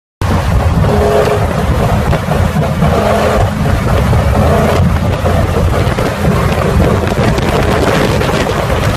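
A vehicle's engine running loudly and steadily, with a heavy low rumble and noise. It cuts in abruptly just after the start.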